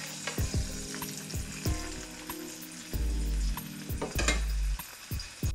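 Seasoned yellowfin tuna fillets sizzling as they sear in hot olive oil in a stainless steel frying pan. Short clicks of metal tongs against the pan and plate come through the sizzle.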